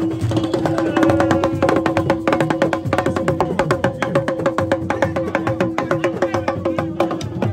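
Music of fast, dense drumming with a steady held note underneath.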